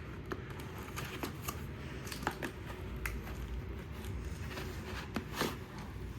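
A mail package being handled and worked at by hand: scattered light clicks, taps and rustles of the packaging, over a low steady hum.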